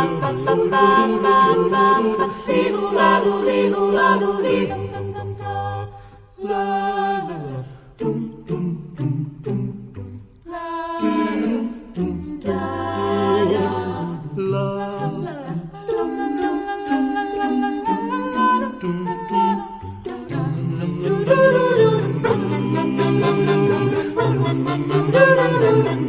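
Mixed a cappella vocal ensemble singing in close harmony, a bass voice carrying a low line under the upper voices. The singing breaks off briefly about six and again about ten seconds in.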